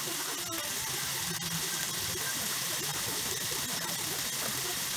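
Chicken deep-frying in a pot of hot oil: a steady sizzle with constant fine crackling.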